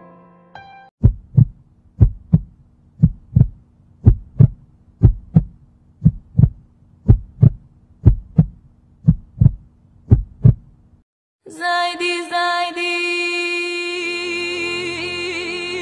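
Heartbeat sound effect: ten slow double thumps about a second apart, over a faint low hum, stopping about eleven seconds in. Then music with long held tones begins.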